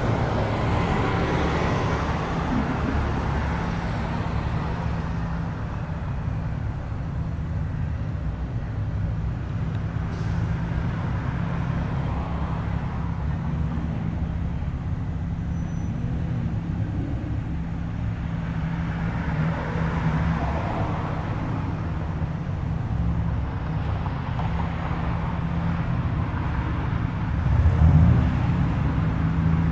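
Car engines running as cars roll past at low speed, a steady low engine hum that swells a few times, most strongly near the end.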